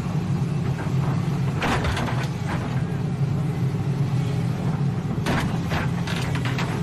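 Excavator's diesel engine running steadily as it works an overturned truck into the breach, with a few short rasping noises around two seconds in and again near the end.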